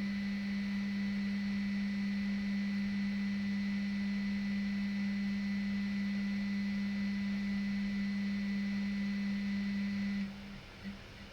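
Pump running with a loud, steady low hum and a fainter high whine, cutting off abruptly about ten seconds in. This is the unwanted noise the pump is making.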